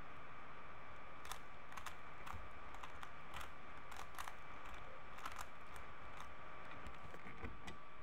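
Plastic 3x3 Rubik's cube layers clicking as they are turned quickly by hand: an irregular run of sharp clicks over a steady background hiss.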